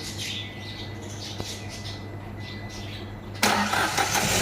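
A freshly overhauled Hyundai Grand i10 petrol engine is cranked and fires up on the first crank about three and a half seconds in, then keeps running.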